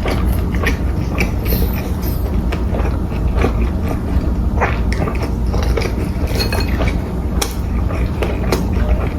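Eating sounds: short clicks of utensils against a dish, with chewing and biting, over a steady low hum.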